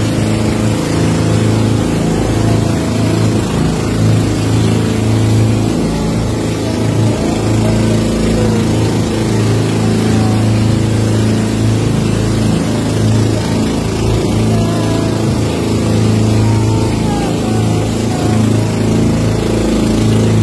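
Outrigger motorboat's engine running steadily at cruising speed, a constant low hum, with wind and water rushing past the hull.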